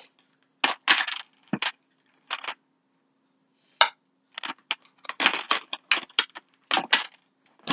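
Fishing tackle being handled and sorted by hand: an irregular run of short clatters and rustles of small hard pieces, coming thicker in the second half.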